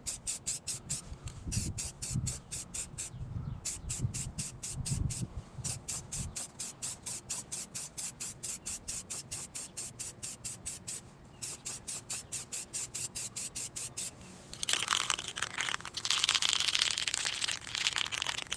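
Aerosol spray paint can being shaken, its mixing ball rattling about four times a second with a few short pauses. About three quarters of the way through it starts spraying: a steady hiss.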